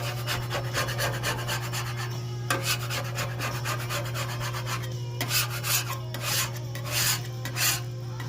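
Metal spatula or scraper rasping across a Blackstone griddle's steel cooktop in repeated strokes, stronger near the end, over a steady low hum.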